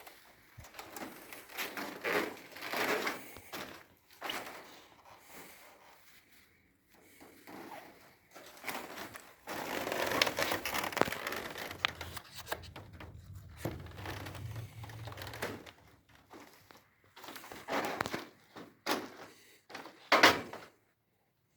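Irregular rustling, crinkling and knocking handling noises that come and go, with a sharp loud knock near the end.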